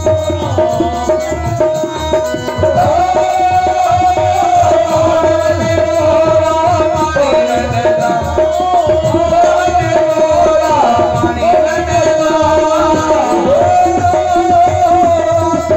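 Indian folk music with a fast hand-drum rhythm under a wavering, gliding melody line over a steady held drone.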